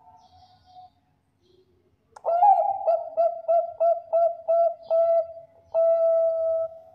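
Zebra dove (Bangkok perkutut) cooing its song: an opening note about two seconds in, a run of about six short coos at roughly three a second, then one long held coo near the end.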